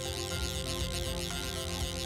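Background music: held electronic chords with a high tone that wavers up and down several times a second.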